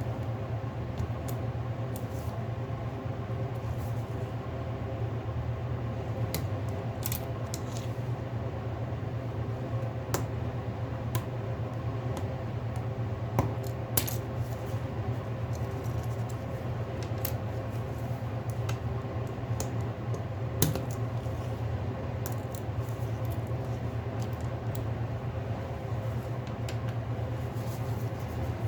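Scattered small clicks and taps of hand tools, screws and parts being handled while a Samsung Galaxy A50 smartphone is taken apart, over a steady low hum. A few sharper clicks stand out about halfway through and again about two-thirds of the way in.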